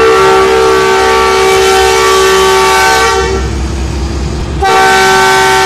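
Air horn of a Pakistan Railways ZCU-30 diesel-electric locomotive sounding a long blast of several steady tones. The horn dips a little over three seconds in, then blasts again at full strength at about 4.7 s, near the end.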